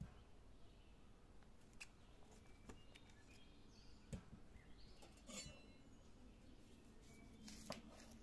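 Faint, scattered knocks of whole peeled onions being set down on a stone tabletop, then a knife cutting into an onion near the end, with a few faint bird chirps behind.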